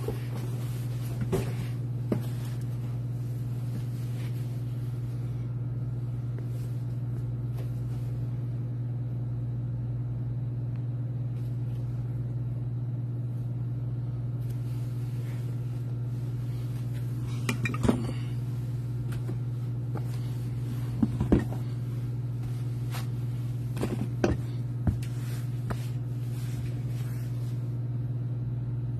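A steady low hum, with a few light knocks and clinks scattered through it, the loudest about 18 and 21 seconds in, as things are handled on the table.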